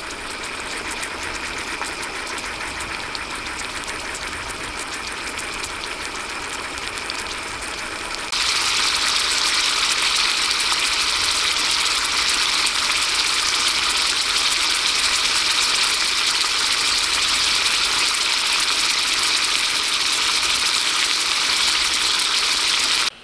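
Steak sizzling in a cast-iron skillet over a gas camping stove, a steady hiss that jumps suddenly louder about eight seconds in.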